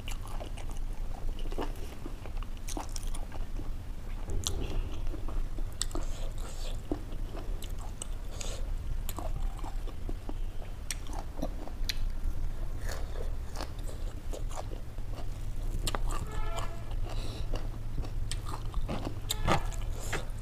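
Close-up mukbang eating sounds: chewing and crunching food, with many short sharp mouth clicks and smacks, over a steady low hum.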